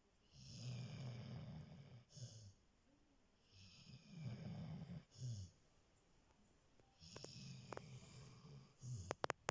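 A sleeping dog snoring quietly. Three long snores come about three and a half seconds apart, each followed by a short extra breath, and a few sharp clicks sound near the end.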